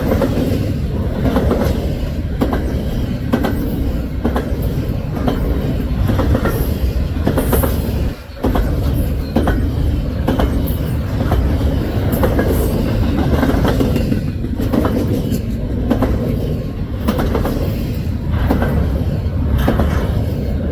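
Double-stack freight cars rolling past on the rails: a steady low rumble with regular clacks of wheels over rail joints about twice a second, and a brief lull about eight seconds in.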